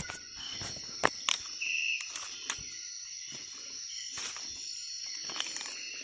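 Steady high-pitched chorus of forest insects, with a few sharp clicks and snaps over it, the loudest at the very start and about a second in.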